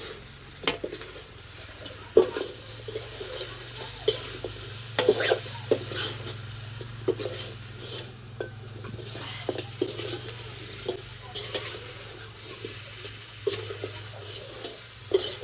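A spoon clinking and scraping irregularly against a metal pot or dish, over a steady low hum.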